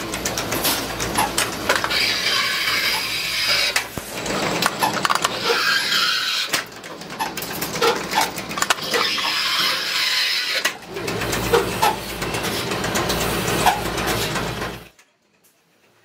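Metalworking machine processing brass rod: steady machine noise with many sharp clicks and metallic rattles, broken by four harsh hissing bursts of a few seconds each. The sound cuts off abruptly about a second before the end.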